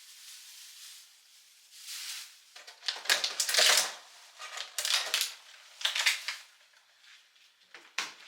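Kitchen handling noises during food preparation: a series of short, crisp clattering and crinkling bursts about a second apart, the loudest a little over three seconds in.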